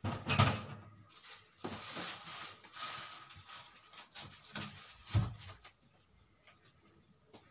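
Kitchen things being moved and set down out of the way: clattering knocks and scraping, with a sharp knock near the start and another about five seconds in.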